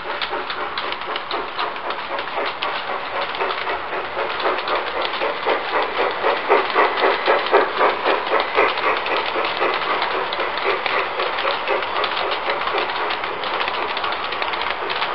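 G-scale model train rolling past close by, its wagon wheels clicking rapidly and steadily over the rail joints; the clicking is loudest about halfway through as the wagons pass nearest.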